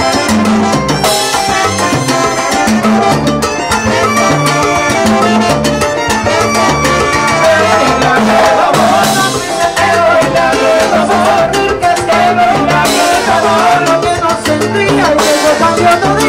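Live salsa band playing: keyboard, congas and bass on a steady, repeating rhythm, with a lead singer coming in over the band about halfway through.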